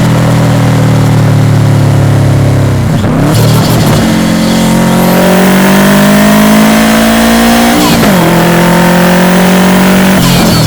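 Subaru Impreza WRX's turbocharged EJ207 flat-four engine running under way. Its note holds steady at first, rises slowly from about four seconds in, then drops suddenly just before eight seconds in with a short burst of noise and settles lower.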